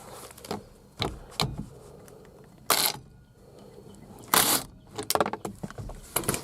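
Socket wrench and sockets working the steering-wheel nut: scattered metal clicks, two short rasps, then a quick run of clicks near the end.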